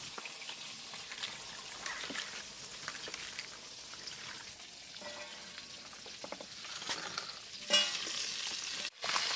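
Hands swishing cut potatoes and pumpkin-leaf stalks in water in a steel plate, with small splashes and clicks. About three-quarters of the way in a metal clank, then climbing perch frying in oil in a steel wok with a steady sizzle.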